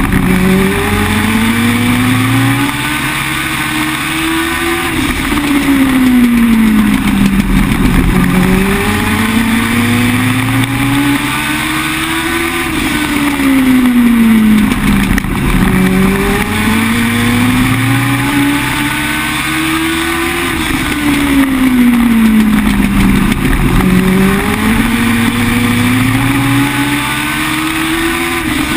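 Legend car's Yamaha 1200 cc four-cylinder motorcycle engine at racing speed, heard from inside the cockpit. The revs climb for several seconds along each straightaway and fall off into each turn, about four times over.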